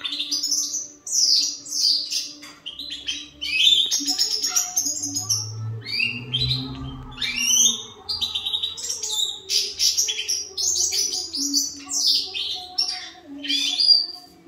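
Major goldfinch (Carduelis carduelis major) singing: a long, fast twittering song of high chirps and short trills, broken by brief pauses.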